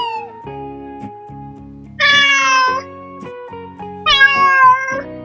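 Domestic cat meowing twice, each meow about a second long, over light background music.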